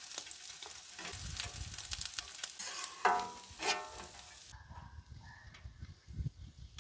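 Bacon and potatoes sizzling on a hot flat-top griddle while a metal spatula scrapes along the steel, with two sharper ringing scrapes about three seconds in. The sizzling stops about four and a half seconds in, leaving a faint low rumble.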